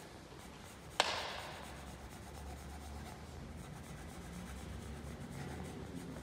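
Pencil hatching on paper on a drawing board: faint, quick scratching strokes laying down shading tone. One sharp click about a second in is the loudest sound.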